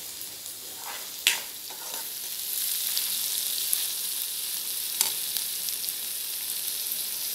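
Chopped onions sizzling in hot oil in a metal kadhai as a metal spoon stirs them; the sizzle grows louder after a couple of seconds. A sharp clink of the spoon on the pan comes a little over a second in and another about five seconds in.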